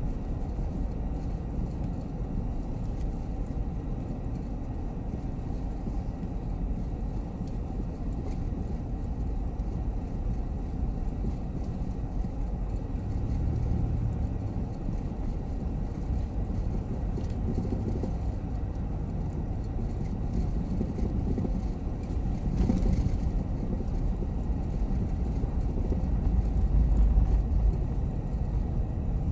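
Steady road noise inside a van's cabin while driving on a bumpy, sand-covered road, with one brief knock about three quarters of the way through. The low rumble swells louder for a couple of seconds near the end.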